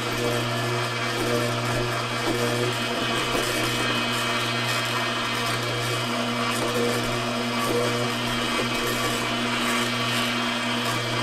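Kuvings commercial cold-press slow juicer running: its 200 W motor turns the auger at 60 rpm with a steady hum while the auger crushes pineapple chunks, cores included, and orange segments, with irregular crackling and crunching over the hum.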